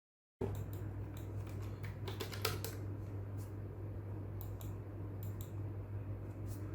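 Scattered clicks of a computer keyboard and mouse in use, with a quick run of keystrokes a couple of seconds in, over a steady low hum. The sound begins after a brief moment of dead silence.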